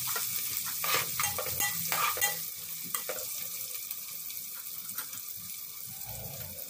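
Sliced onions frying in hot oil in a metal pot, sizzling steadily, while a steel spoon scrapes and clinks against the pot in the first three seconds or so of stirring.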